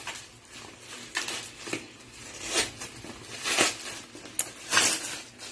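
Plastic mailer bag and packing tape being torn open by hand: crinkling and ripping plastic in irregular bursts about a second apart, with one sharp snap a little past four seconds in.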